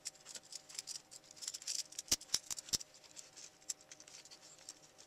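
Hard plastic parts of a Transformers Armada Cyclonus action figure clicking and scraping as the small Minicon figure is pushed and fitted into the toy by hand. Three sharper clicks come a little past two seconds in.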